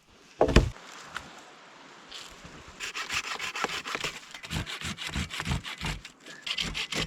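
Hand saw cutting through dead wood in quick back-and-forth strokes, about three a second, starting about three seconds in. A single loud thump comes near the start.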